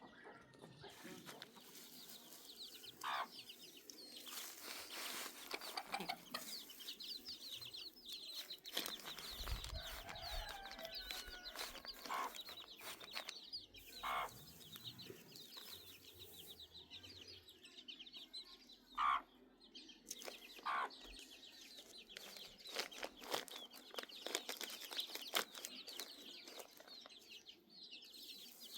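Faint animal calls: about six short calls spaced a few seconds apart, over a steady high chirring.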